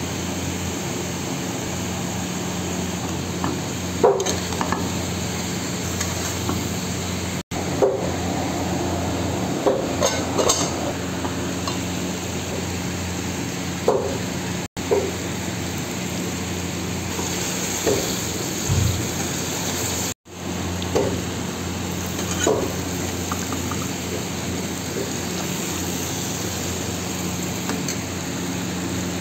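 Chicken curry sizzling and frying in a pan over a steady low hum, with a slotted spatula now and then stirring and scraping against the pan. The sound breaks off briefly three times.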